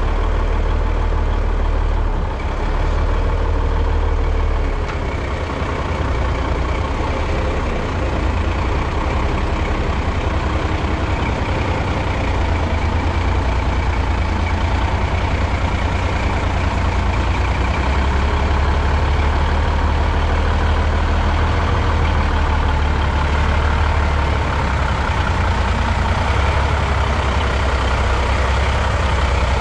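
A heavy truck's engine running at low speed as it pulls a tanker trailer slowly forward, a steady deep rumble with two brief dips in level in the first few seconds.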